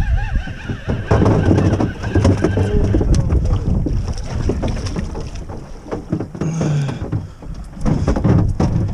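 Wind rushing over the microphone and water moving around a small boat, with clicks and knocks from a fishing rod and reel being handled as a rockfish is reeled up and swung aboard. A faint steady whine runs through the first few seconds.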